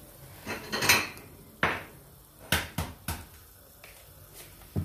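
Wire whisk knocking and scraping against a plastic mixing bowl as yogurt and flour are whisked together, in a series of irregular knocks.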